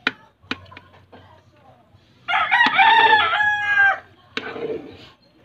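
Rooster crowing once, a single call of about a second and a half in the middle, preceded by a couple of sharp knocks.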